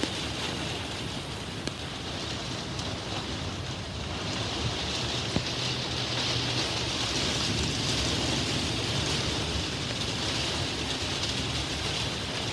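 Heavy rain falling steadily in a thunderstorm, a continuous hiss that swells slightly a few seconds in, with a low rumble underneath and a few sharp drop ticks.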